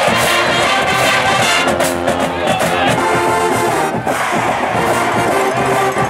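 Music with brass instruments playing held notes, over crowd noise.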